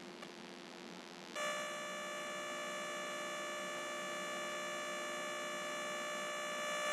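A steady electronic buzzing hum that switches on suddenly about a second and a half in and holds at an even pitch and level, over faint room noise.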